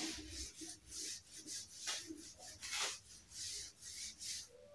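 Whiteboard being wiped clean: quiet, rhythmic swishing rubs across the board's surface, about two or three strokes a second.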